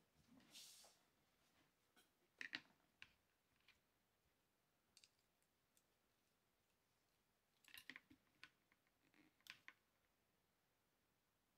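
Faint, scattered clicks and taps of small parts and a screwdriver being handled while the read head of a DRO glass scale is taken apart, with a quick cluster of clicks about eight seconds in.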